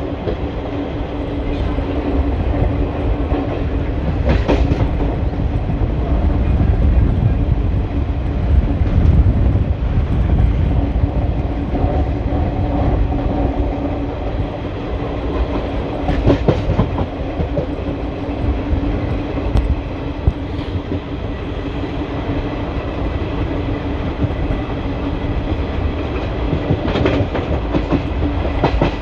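Indian Railways ICF passenger coach running on the line: a steady rumble of wheels on rail with a low hum, broken by a few sharp clicks from the wheels.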